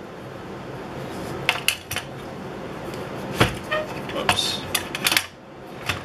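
Plastic cabinet hardware jig and its steel ruler clicking and clacking against a cabinet door as it is moved into place: a scattering of sharp clicks, with one duller knock about halfway through.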